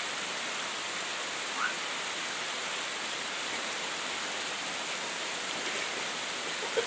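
Heavy sleet falling: a steady, even hiss of ice pellets coming down like heavy rain.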